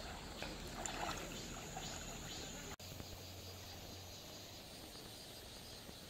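Faint, steady rush of a shallow stream, with a few small splashes in the first couple of seconds as a small dog moves about in the water. The sound drops out for an instant about three seconds in.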